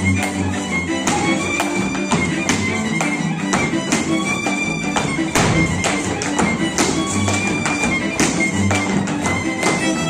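Hungarian folk dance music led by a fiddle over a low bass line. Frequent sharp taps and knocks from the dancers' boots on the wooden stage run through it.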